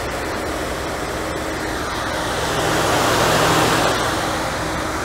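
The low-speed auxiliary electric cooling fans of a 1992 Mercedes 300E (W124) running steadily with the engine idling. They stay on continuously with the air conditioning on, as they should, rather than cycling on and off. The noise swells for a second or two in the middle.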